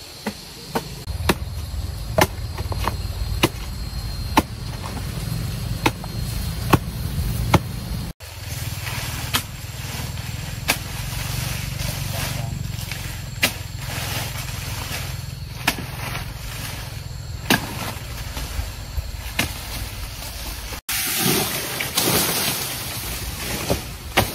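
Motor-driven multipurpose crusher running: a steady low hum with frequent sharp knocks. The hum drops out abruptly twice, and near the end it gives way to a louder hiss.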